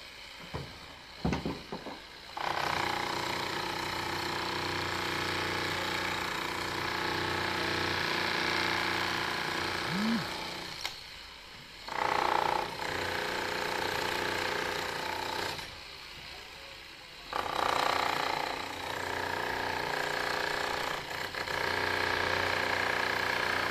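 Corded electric demolition hammer running with its chisel point breaking up brick and concrete. It starts about two seconds in after a few knocks, and runs in long stretches broken by two short pauses.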